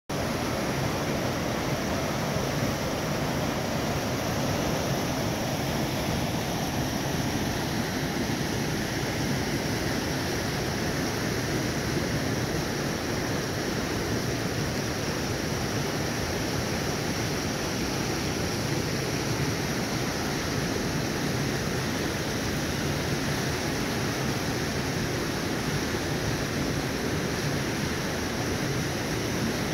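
Creek water rushing over and between boulders in small cascades, a steady rush of white water.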